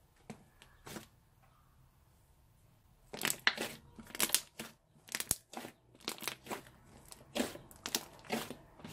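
Thick slime being squeezed and pressed by hand, with a few faint pops at first, then, from about three seconds in, a quick run of loud pops and crackles as air pockets are squeezed out.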